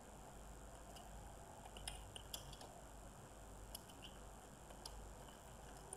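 Faint typing on a computer keyboard: scattered soft key clicks, mostly in the middle, over a low steady hiss.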